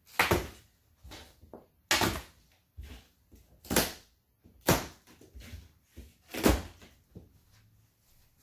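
A large cardboard appliance box being handled: five loud knocks and scrapes on the cardboard, a second or two apart, with softer rustles and taps between them.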